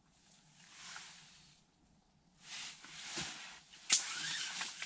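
Rustling and handling noises from an ice angler moving in his winter suit and working his tackle, with a sharp click about four seconds in followed by more rustling and small clicks.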